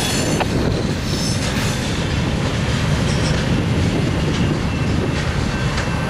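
Freight train's last cars rolling past on the rails, a steady rumble of steel wheels with faint, brief wheel squeal now and then.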